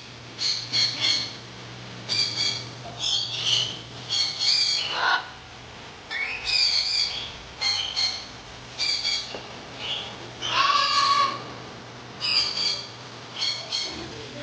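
Birds squawking: a run of short, harsh calls, often in quick pairs, repeated throughout.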